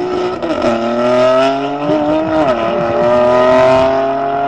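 Two tuned BMWs, a 335 with a manual gearbox and an F82 M4, both with turbocharged straight-six engines, accelerating flat out in a drag race. The engine note climbs steadily and drops at an upshift about half a second in and again about two and a half seconds in.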